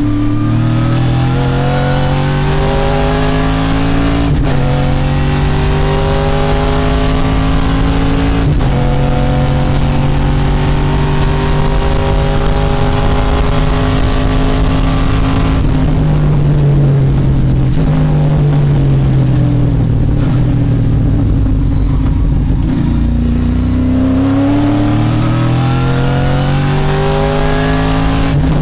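TA2 race car's V8 engine, heard inside the cockpit, at full throttle: the engine note climbs through two quick upshifts, pulls long, then falls as the driver brakes and downshifts, and climbs again under acceleration near the end.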